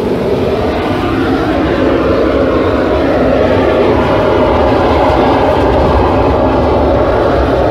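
A loud, steady mechanical roar, like a machine or blower running, growing slightly louder over the first couple of seconds and then holding even.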